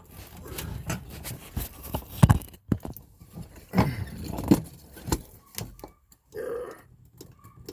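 A garbage-disposal spanner working a fuel tank's lock ring tight: irregular metallic clicks and knocks with short scrapes as the tool is levered round.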